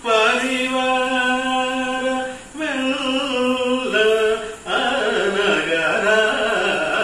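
A man singing a devotional song solo and unaccompanied, holding long sustained notes in phrases, with short breaths about two and a half and four and a half seconds in.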